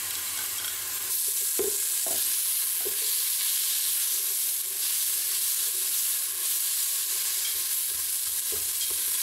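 Chopped onion and garlic sizzling in hot olive oil in a pot, a steady hiss that grows louder about a second in. A utensil stirring them knocks and scrapes against the pot a few times.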